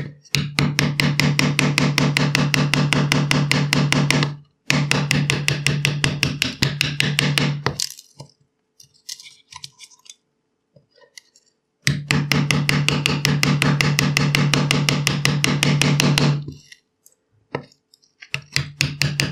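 A homemade steel mallet, its head made from an electric motor's rotor, rapidly striking a wood chisel's capped handle as the chisel cuts into a wooden board. The blows come quick and even, about nine a second, in runs of three to five seconds with short breaks, and a few scattered taps in the longest break.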